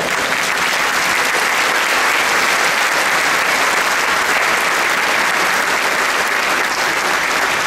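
A large congregation applauding steadily.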